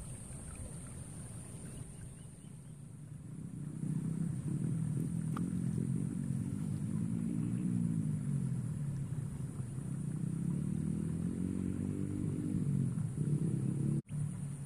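An engine running, its pitch slowly rising and falling and growing louder from about four seconds in, over a steady thin high whine.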